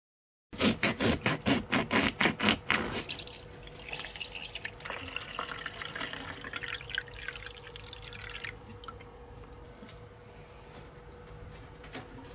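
Water poured into a clear plastic jug: a quick run of glugs for about two and a half seconds, then a softer hiss that fades about eight seconds in. A faint steady hum runs underneath.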